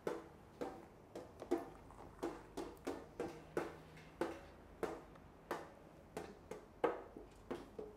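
Metal kitchen utensils tapped in a slow steady beat, about three taps every two seconds, each a short clink with a brief ring.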